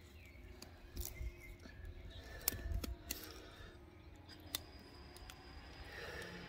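Filleting knife cutting a large snapper's fillet off the frame, the blade scraping and clicking over the bones in irregular ticks, loudest about two and a half seconds in.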